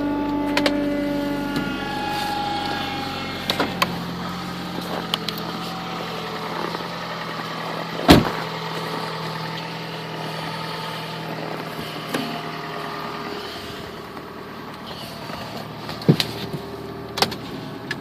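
2001 Chrysler PT Cruiser's four-cylinder engine idling just after a cold start in about −2° cold, its fast idle easing lower in the first couple of seconds and then running steady. A sharp knock about eight seconds in, and a few light clicks near the end.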